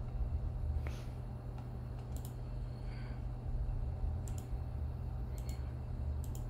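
Computer clicking: four sharp clicks spaced a second or two apart, over a steady low hum.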